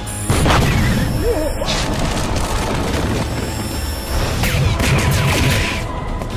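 Film battle sound effects: heavy booms and crashes, starting with a loud hit about a third of a second in, mixed with a music score and short grunts.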